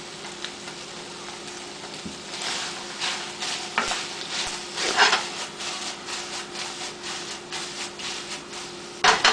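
Wooden spatula scraping and stirring chicken pieces in sauce around a stainless steel frying pan, in irregular strokes with the loudest about five seconds in, over a faint steady sizzle.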